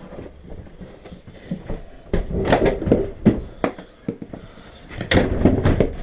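An emptied fridge cabinet being heaved upright: clusters of knocks, bumps and scrapes as it is tipped and set down, loudest from about two to three and a half seconds in and again about five seconds in.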